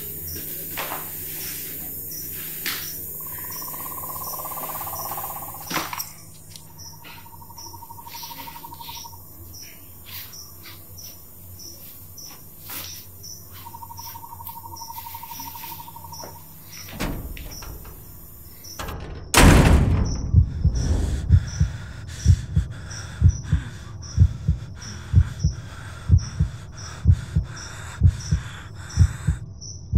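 Night insect ambience of crickets chirping steadily, with a few short trills. About two-thirds of the way through, a sudden loud horror-film sting hits, followed by a steady, heartbeat-like low thumping.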